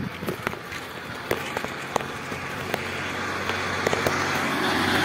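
Bicycle clicking and rattling over a rough village road, with an oncoming motor vehicle's engine growing steadily louder over the second half.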